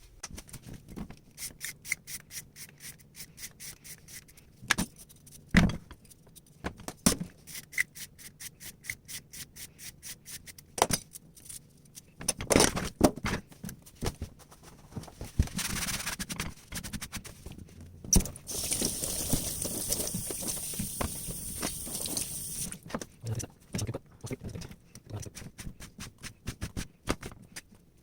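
A knife chopping vegetables on a cutting board in quick, even strokes, several a second, with a few harder knocks and short pauses. After the middle there is a steady hiss for about four seconds before the chopping resumes.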